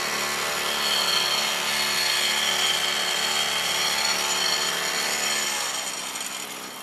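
Small gasoline engine of a vibrating power screed running steadily as the screed is floated across wet concrete, a steady hum of many tones that grows quieter near the end.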